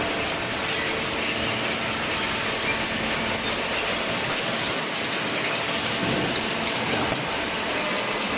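Steady mechanical noise with rattling and clanking, holding at an even level throughout.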